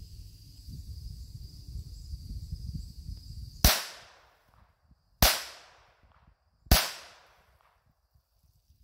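Three shots from a Ruger SR22 .22 LR pistol firing Winchester Super X 40-grain hollow points, evenly spaced about a second and a half apart, each sharp crack followed by a short echo that dies away.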